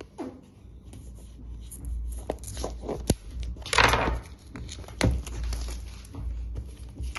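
The retail box of a wireless microphone kit being handled in preparation for opening: scattered sharp clicks and knocks, with a brief scraping or tearing rasp about four seconds in.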